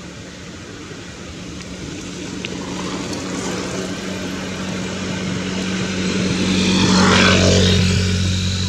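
A passing engine: a steady low drone that swells over several seconds, is loudest about seven seconds in, then begins to fade.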